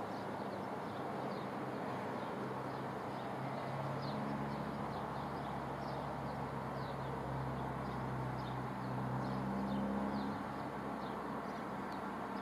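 Outdoor ambience: a steady background wash with a low engine drone that comes in about four seconds in and swells again near the end, while small birds give repeated short, high chirps.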